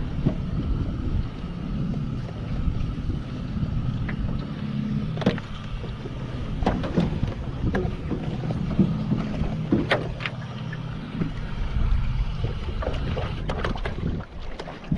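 Steady low motor hum with scattered sharp knocks and clatter.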